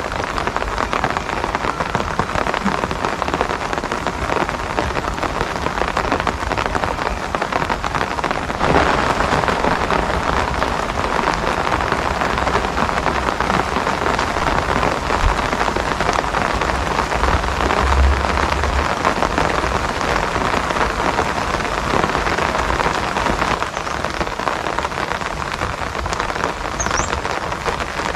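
Steady rain falling: a dense, even hiss of many small drop impacts.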